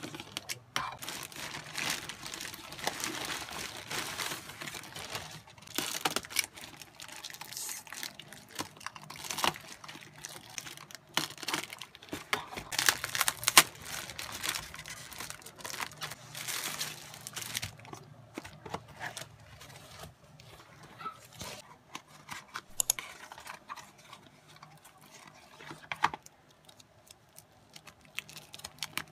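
Plastic courier mailer bag and wrapping crinkling, rustling and tearing as parcels are opened by hand, with irregular sharp crackles. It is busiest at the start and again around the middle, over a faint steady low hum.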